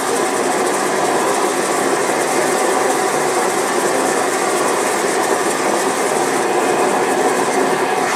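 Melting furnace's burner running full on, a loud steady rushing noise of flame and forced air that does not change.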